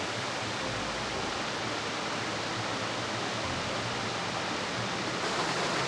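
Stream rushing over rocks in a gorge, a steady even rush of water.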